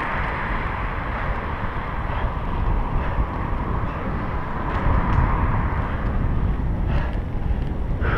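Wind rumbling over the microphone of a camera on a road bicycle riding uphill, a steady low noise with a couple of light clicks near the end.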